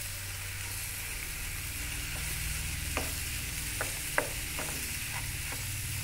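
Chicken pieces and tomato sizzling in a frying pan on a high gas flame while being stirred with a spatula. The spatula knocks and scrapes against the pan several times in the second half, once sharply about four seconds in.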